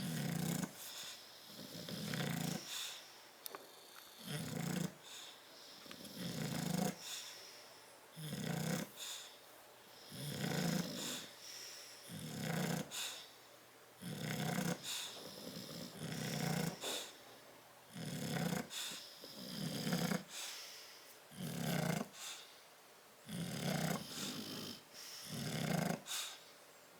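Sleeping bulldog snoring in a steady rhythm, one rasping snore roughly every second or two.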